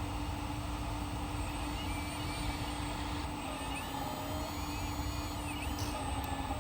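Electric hydraulic pump of a 1/14 scale RC hydraulic excavator running with a steady hum, short wavering higher whines coming and going over it.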